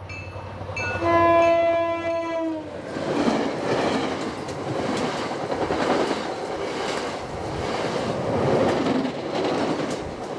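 MBTA commuter rail express train passing at speed. It sounds one horn blast of nearly two seconds, whose pitch dips as it ends, then its bilevel coaches rush past with a steady rumble and rapid clacking of wheels over the rail joints.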